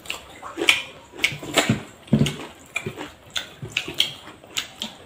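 Two people eating by hand: wet chewing and lip-smacking in short, irregular clicks, a few each second, with brief low murmurs between them.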